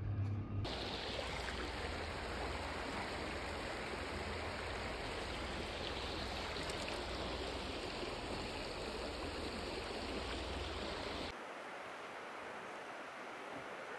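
Water rushing steadily, like a stream or small waterfall. About eleven seconds in it cuts abruptly to a quieter, thinner steady hiss.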